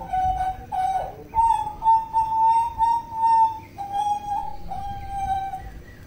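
Hooded butcherbird singing: a run of clear, flute-like whistled notes, most held steady for a second or so at a slightly different pitch, with the longest drawn out for about two seconds near the middle.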